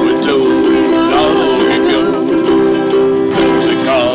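Acoustic string band playing a song together: ukuleles and acoustic guitars strumming chords in a steady rhythm, with mandolins and an upright bass.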